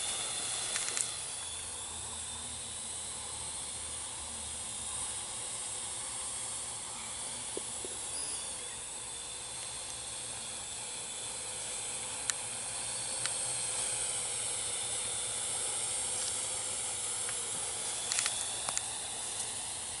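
Parrot AR.Drone 2.0 quadcopter in flight: a steady whirring hiss from its four electric rotors and propellers, with a faint high whine held level. A few faint clicks come near the end.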